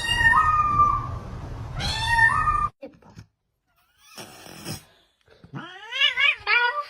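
Domestic cat meowing: two long meows that rise in pitch in the first few seconds, then, after a short gap and a brief rustle, a wavering, warbling meow near the end.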